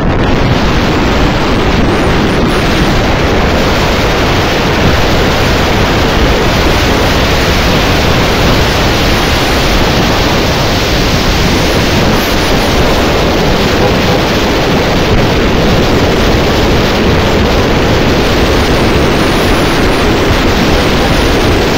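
Loud, steady wind rush on the microphone of a rider on a moving Vespa scooter.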